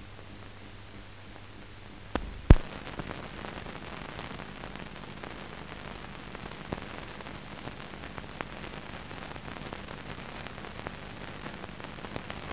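Old optical film soundtrack noise: a low hum, then two sharp pops a little over two seconds in, followed by steady hiss with scattered crackles.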